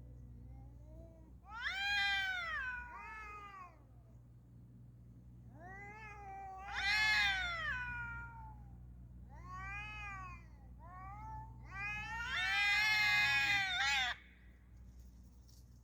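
Street cats yowling at each other in a territorial standoff: a series of long, sharp, wavering cries that rise and fall in pitch. The longest and loudest comes near the end and cuts off suddenly.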